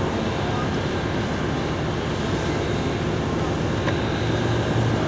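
Steady road and wind noise of a car driving along a highway, with no clear beat or pitch change.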